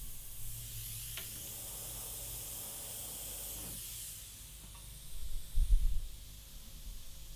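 Gravity-feed airbrush hissing steadily as it sprays paint, fading about four seconds in. A few low thumps follow a little past halfway and are the loudest sound.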